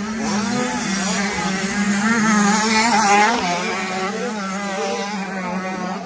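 Motocross bike engines revving hard and falling back between gear changes as riders pass, loudest about three seconds in, over a steady low drone.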